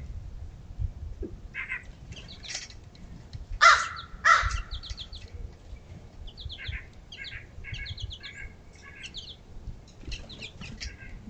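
Backyard birds calling at a feeder: two loud, harsh calls about four seconds in, then a run of short, high chirps.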